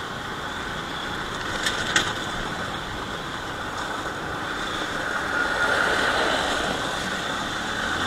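Motorcycle running over loose gravel, with steady engine, wind and tyre noise and a few sharp clicks about two seconds in. The sound swells louder past the middle as an oncoming truck passes.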